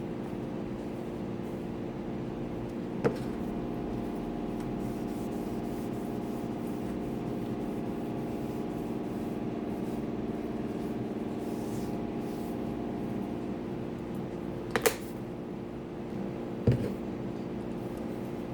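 A steady machine hum with a few pitched tones, broken by a sharp click about three seconds in, two quick knocks near fifteen seconds and another knock a moment later.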